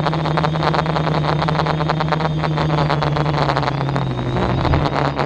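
A small aircraft's motor running steadily at one pitch, which dips slightly about four seconds in, under heavy wind buffeting on the microphone.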